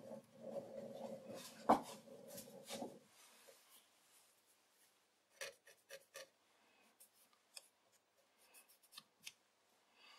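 Lathe winding down: a low hum dies away over the first three seconds, with one sharp knock near two seconds. Then come scattered light clicks and rubbing as fingertips feel the freshly faced end of the metal workpiece in the chuck, checking the finish.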